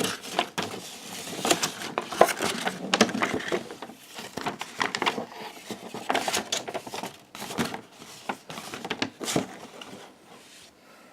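Trading-card pack wrapper crinkling and cards being handled, a run of irregular crackles and rustles that thins out near the end.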